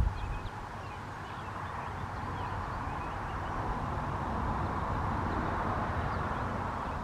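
Pileated woodpecker chiselling at wood for grubs: irregular dull knocks, one loud strike right at the start. A steady rushing noise swells through the middle, with faint small bird chirps above it.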